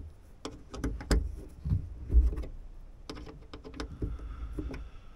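Irregular small clicks and taps of a metal hex key and rod working against a plastic trim panel and the metal fittings of a truck's toolbox-lid latch, with a couple of dull knocks.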